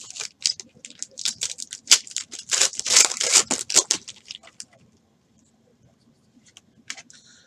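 Foil trading-card pack wrapper being torn open and crinkled in the hands: a dense crackling that stops about four and a half seconds in, followed by a few faint ticks of cards being handled.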